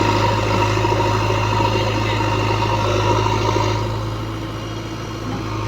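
Heavy diesel engine of earthmoving machinery running steadily, easing off slightly about four seconds in and picking up again near the end.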